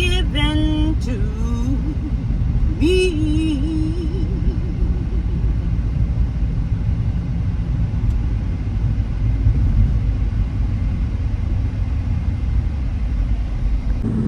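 Steady low road and engine rumble inside a moving car's cabin. In the first few seconds a voice sounds briefly with a few held, sung-like notes; then only the rumble.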